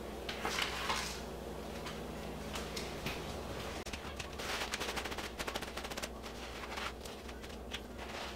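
Soft crackling and rustling of a paper towel being handled as raw ahi tuna steaks are patted dry, with a cluster of crackles about four to six seconds in. A low steady hum runs underneath.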